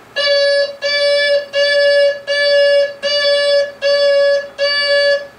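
Electronic tone from a Bruder Mack Granite toy dump truck's sound unit, sounding seven times in a steady rhythm, each tone a little over half a second long with short gaps between.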